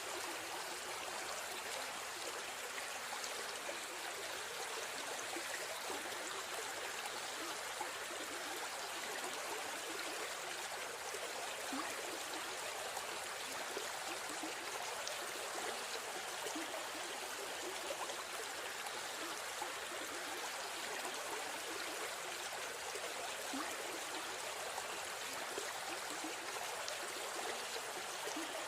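River stream running steadily: continuous babbling and trickling water.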